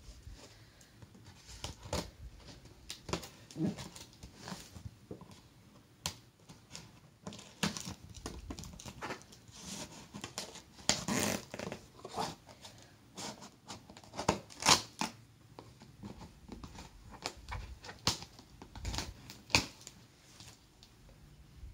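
Cardboard box and packaging being handled and opened: irregular rustling, crinkling and tearing, with scattered sharp clicks and knocks.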